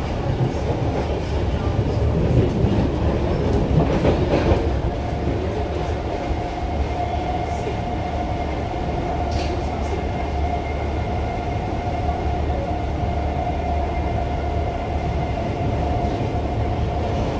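Cabin running noise of a Siemens C651 MRT train travelling along the line: a continuous low rumble, louder and rougher for a few seconds near the start. From about seven seconds in a steady high hum rides on top, and there is one short click about halfway through.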